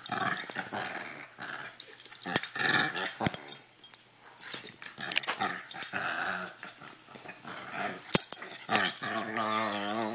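A Rottweiler puppy and another young dog play-fighting, with repeated bursts of growling and snarling and a long wavering growl near the end. A sharp click about eight seconds in.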